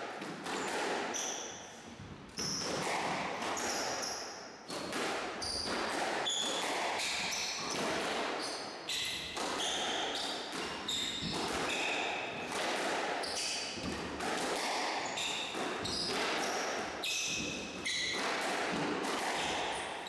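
Squash rally: the ball struck by rackets and smacking off the court walls again and again, each hit echoing in the enclosed court, with short high squeaks of shoes on the wooden floor.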